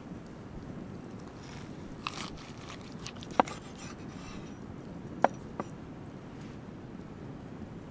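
Large cleaver cutting through a raw ostrich heart on a wooden board: short wet slicing and scraping, with sharp knocks as the blade strikes the board, the loudest two about three and a half and five seconds in.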